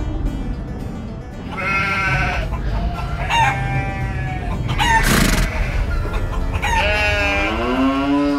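A rooster crowing three times over background music, with a short hissing burst between the second and third crows.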